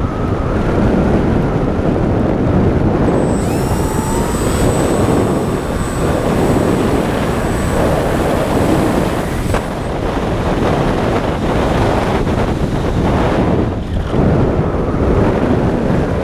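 Wind rushing over the onboard camera microphone of a radio-control plane in low, fast flight. A thin high whine, the plane's motor and propeller, runs from about three seconds in to about ten seconds in.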